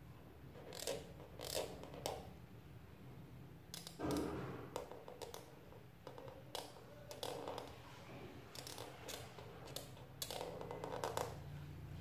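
Black felt-tip marker drawing short strokes on paper: a dozen or so brief scratches at irregular intervals, with a longer run of strokes near the end.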